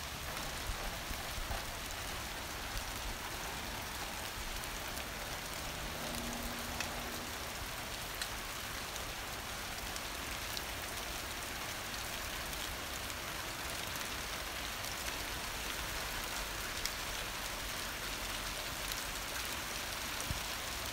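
Heavy rain pouring steadily: an even hiss with scattered sharp taps of large raindrops.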